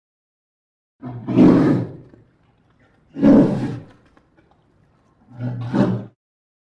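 Polar bear giving three rough, low roars, each about a second long, with pauses between them.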